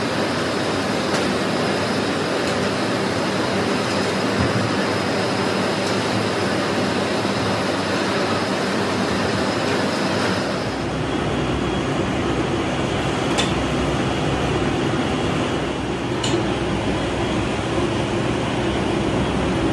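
Rotational moulding rig for a plastic water tank: a steady rushing noise from the gas burner flames under the turning steel mould, with the rumble of the rotating frame. Near the middle it shifts to a deeper rumble with a few faint clicks.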